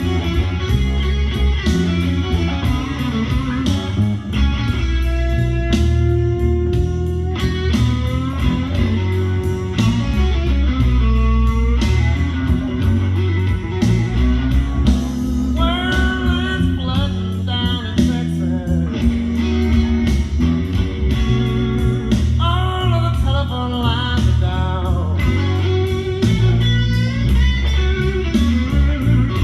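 Blues-rock music: electric guitar over bass and drums with a steady beat, the guitar bending notes, and a singing voice coming in partway through.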